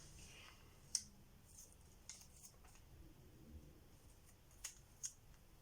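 Near silence, with a few faint, sharp clicks scattered through it.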